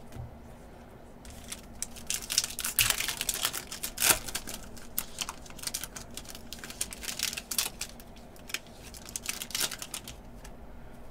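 Foil wrapper of a Panini Contenders basketball card pack crinkling and tearing as it is opened by hand, with the cards rustling as they are slid out: an irregular run of crackly crinkles that starts about a second and a half in and dies away near the end.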